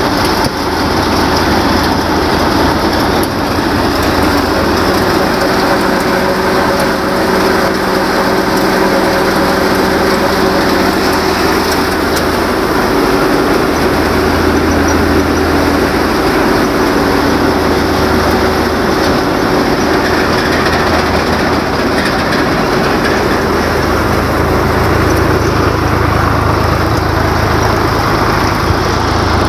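A Sonalika DI-745 III tractor's diesel engine running steadily under load, driving a threshing machine through its PTO shaft. The thresher's mechanism adds a steady whirring rush over the engine's low hum.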